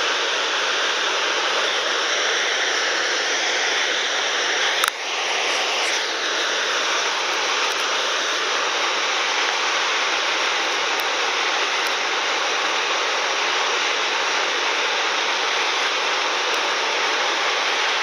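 Steady rushing of the Gullfoss waterfall, with one brief knock about five seconds in.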